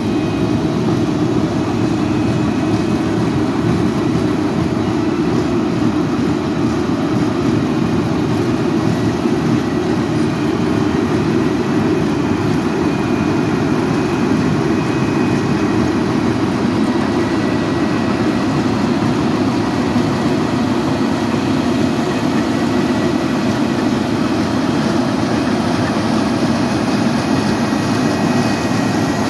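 Asphalt milling machine running steadily: a continuous, loud heavy-engine drone that holds without breaks or changes.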